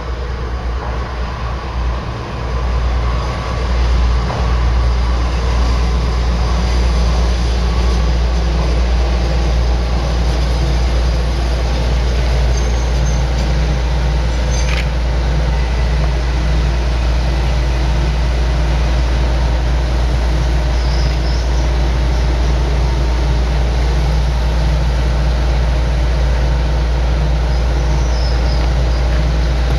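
Diesel engine of a single-car Kyoto Tango Railway railcar (KTR 700 series, car 704) as it pulls in, then running steadily with a low rumble while the car stands. There is one sharp click about 15 seconds in.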